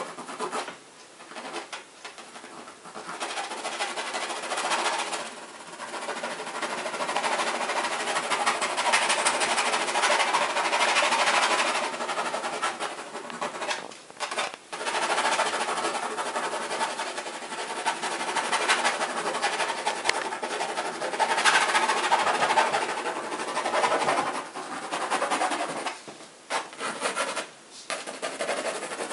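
Graphite pencil scratching and rubbing across a stretched canvas in quick, continuous shading strokes. It breaks off briefly now and then as the pencil lifts.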